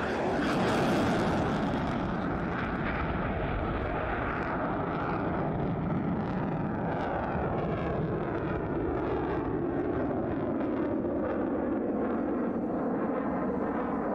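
F-15 Eagle fighter jet's twin turbofan engines in a flyby: a loud jet roar that peaks about a second in, then continues as a steady rumble with a slowly sweeping whoosh as the jet moves off.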